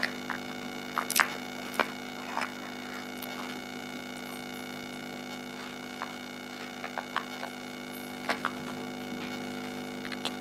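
Large plastic toy building blocks clicking and knocking as they are pressed together and set on the table, in scattered short clicks, over a steady electrical hum.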